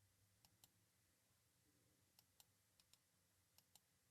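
Near silence, broken by faint computer mouse clicks in quick pairs, four pairs in all.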